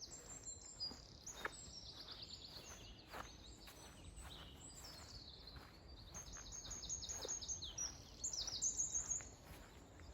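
Songbirds singing: faint high-pitched trills of rapidly repeated notes and chirps, overlapping one another throughout.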